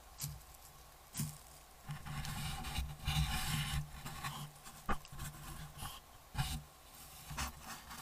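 White-tailed deer nosing and rubbing against a trail camera right at its microphone: fur brushing and scraping over the camera housing, in a longer stretch of noise in the middle and several short bursts, with one sharp click about five seconds in.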